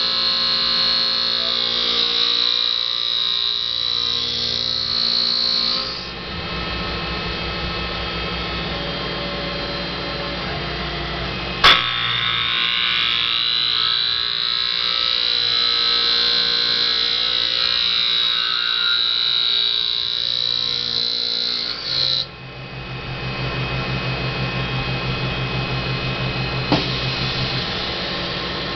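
Tormach PCNC 1100 CNC mill's spindle spinning a wooden workpiece against a fixed cutting tool, turning it like a lathe: a steady high motor whine over the noise of the cut. The sound changes about six seconds in and again about 22 seconds in, the whine drifts slowly up and down in between, and there is one sharp click about twelve seconds in.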